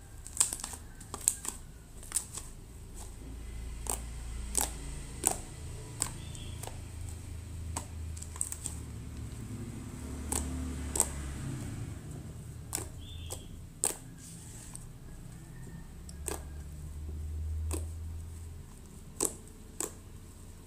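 Thick white shampoo slime being kneaded and pressed by hand, giving off irregular sharp clicks and pops as the sticky slime pulls away from the fingers and table, over a low rumble of handling.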